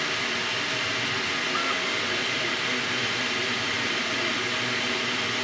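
Creality K1 Max 3D printer running at its higher print speed: a steady whir with short motor tones that keep shifting in pitch.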